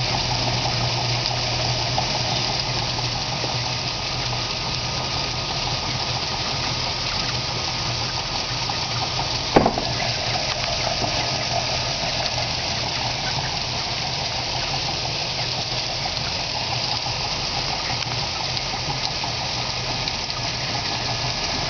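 Ground chicken feed pouring from a fill spout into a feed hopper: a steady rushing hiss. A low hum drops away about four seconds in, and there is a single sharp knock near the middle.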